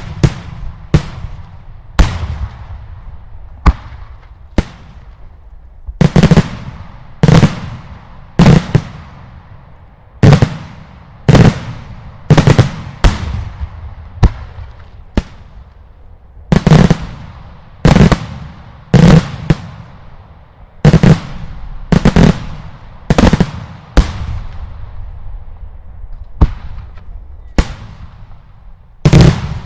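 Daylight fireworks: a steady series of loud single aerial shell bursts, about one a second, each bang trailing off in a fading echo.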